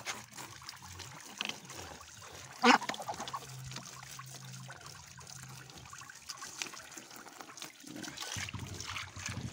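Garden hose spraying water onto Muscovy ducks in a slatted wooden cage, with water splashing off feathers and slats. One short loud cry comes about three seconds in.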